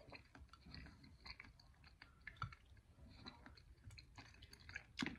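Faint chewing of a raw shrimp with the mouth closed: soft, irregular small clicks.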